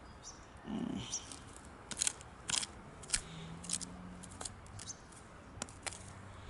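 Plastic sprinkler fittings and irrigation pipe being handled: scattered sharp clicks and short rustles, faint.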